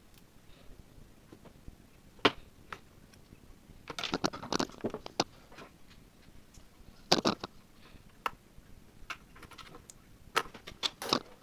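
Small tools clicking, tapping and scraping against a small circuit board as a push-button switch is desoldered and pried loose with a soldering iron tip and a utility-knife blade. There is one sharp click about two seconds in and short bursts of scraping and clicking about four, seven and ten seconds in.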